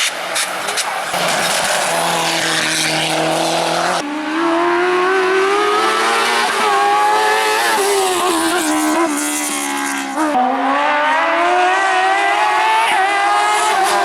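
Race car engines at hard throttle on a hill climb, their pitch climbing with each gear and dropping at the shifts and corners. The sound cuts suddenly to a different car twice.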